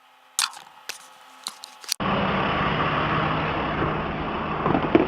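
A few sharp clicks and knocks, then an abrupt switch to a truck engine running steadily with a low hum.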